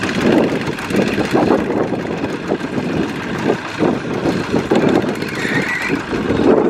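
A two-wheel walking tractor's single-cylinder diesel engine running under load with an uneven pulse as it drags a trailer of rice sacks through deep mud.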